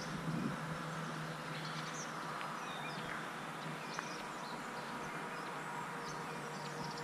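Quiet rural outdoor ambience: scattered faint bird chirps over a low, steady background hum.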